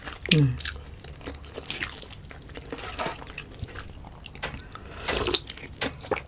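Close-miked eating: wet chewing with many sharp mouth clicks, and a brief falling 'mmm' just after the start.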